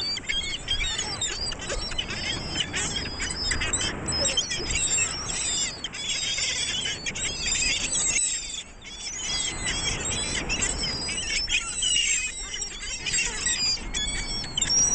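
A flock of seagulls calling over one another, many short high calls overlapping, above a steady low noise. There is a brief lull a little past the middle.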